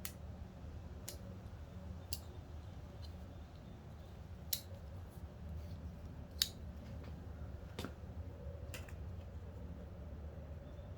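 Pocket knife cutting plastic zip ties on a car seat cover: a handful of sharp clicks and snips at irregular intervals over a low steady hum.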